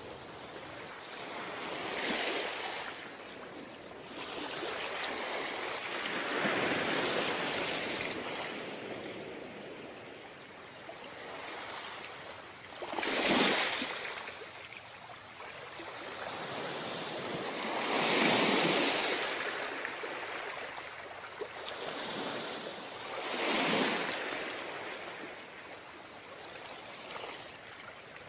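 Ocean waves breaking and washing up a beach, in surges that swell and fade about every five seconds. The breakers about 13 and 18 seconds in are the loudest.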